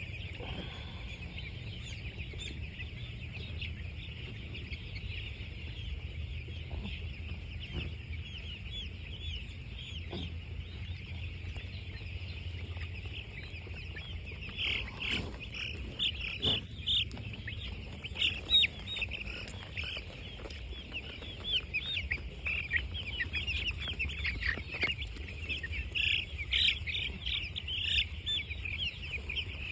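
A flock of four-day-old broiler chicks peeping continuously, many high calls overlapping, louder and busier from about halfway on. A low steady hum runs underneath.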